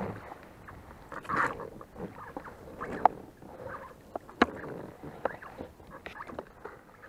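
Gear being handled in an inflatable boat: scratchy rustling broken by a handful of sharp clicks and knocks, the loudest about a third and two-thirds of the way through.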